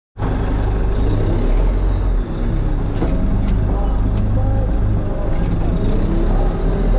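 Heavy diesel earthmoving machine running steadily, with a few sharp clicks about halfway through.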